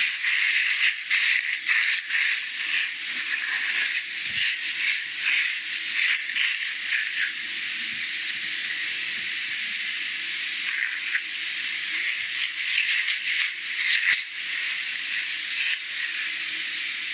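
Plastic sheet rustling and crinkling under hands as semolina dough is rolled and shaped on it. A steady hiss lies underneath, with many short irregular crackles.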